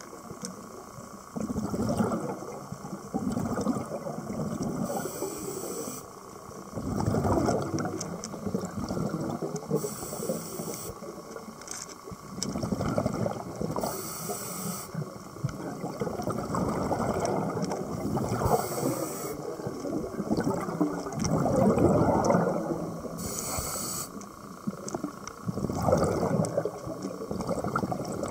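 Scuba diver breathing through a regulator underwater. Short hissing inhalations alternate with bubbling exhalations, in a slow cycle about every four to five seconds.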